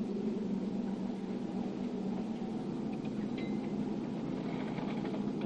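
Small car ferry's engine running steadily, an even low drone.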